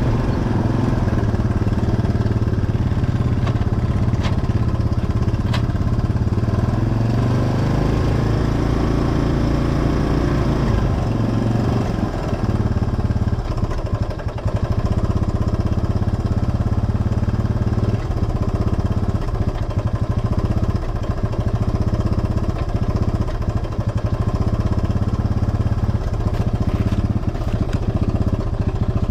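ATV engine running steadily at an even pitch.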